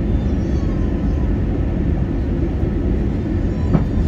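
Steady low cabin rumble of an Airbus A320neo (A320-271N) descending on approach: airflow over the fuselage and its Pratt & Whitney PW1100G geared turbofan engines, heard from inside near the front of the cabin. A short click sounds near the end.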